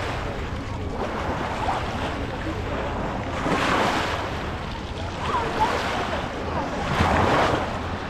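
Small sea waves washing onto the shore, each swelling and falling back, about every three and a half seconds, with wind on the microphone.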